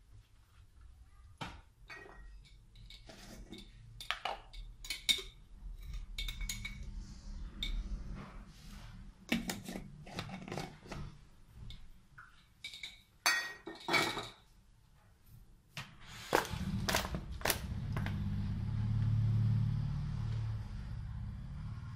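Kitchen handling sounds: a string of irregular knocks and clinks as a plastic colander and bowl are moved about, then a low steady hum over the last few seconds.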